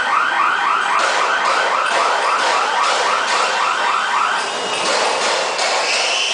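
Pulsing electronic warning buzzer on a corrugated-cardboard processing machine, about five beeps a second, stopping about four and a half seconds in, over the machine's steady running clatter.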